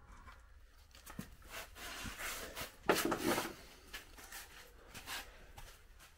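Handling noise from work on a large tire: a run of rustles, scrapes and light knocks, the loudest a short scraping rush about three seconds in.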